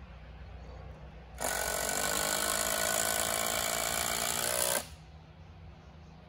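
Cordless power driver running at a steady speed for about three and a half seconds, driving a screw to fix a timber rail to a post, then stopping abruptly.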